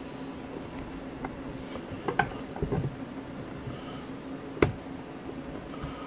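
Quiet kitchen room tone with a steady low hum, broken by a few short sharp clicks or knocks, the loudest about two-thirds of the way through.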